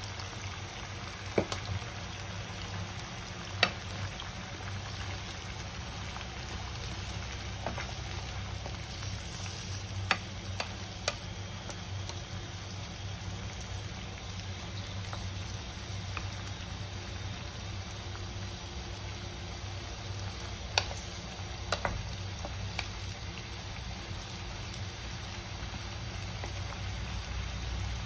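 Meat simmering in broth and oil in a nonstick pan, giving a steady sizzle. A wooden spatula stirs it, with a handful of short sharp knocks against the pan scattered through.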